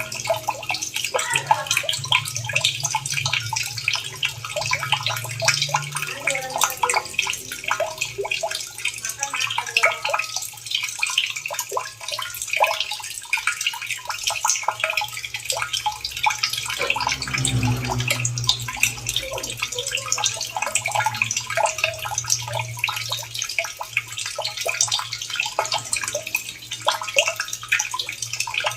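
Water running and splashing steadily, dense with small drips and plops.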